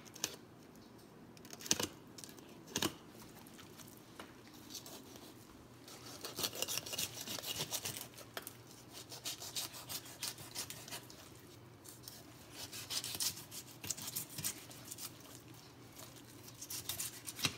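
Fillet knife slicing a striped bass fillet off the backbone, the blade scraping and rasping along the bones in quick short strokes. A few sharp clicks come in the first few seconds, then the rasping comes in several longer runs.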